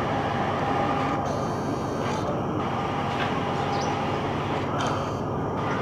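Air-conditioned diesel railcar train running along the track, a steady rumble of engine and wheels on rail with a faint thin whine on top.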